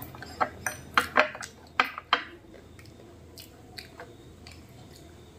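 Crisp phuchka (pani puri) shells crunching, about six sharp cracks in quick succession during the first two seconds, then quieter wet sounds.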